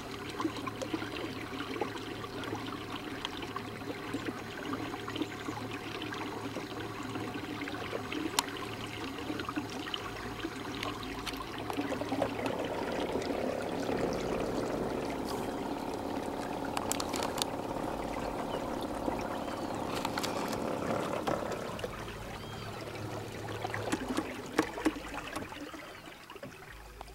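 Water rushing and splashing along the hull of a moving catamaran kayak, over a steady low motor hum, a little louder for several seconds midway.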